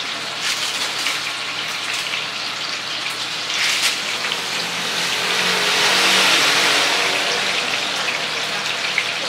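Oyster fritters deep-frying in a large pan of hot oil: a steady crackling sizzle that swells louder for a couple of seconds about five seconds in.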